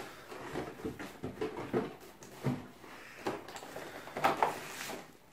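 Thin clear plastic packaging tray being handled: irregular crinkles, taps and rustles of plastic, a little busier about four seconds in.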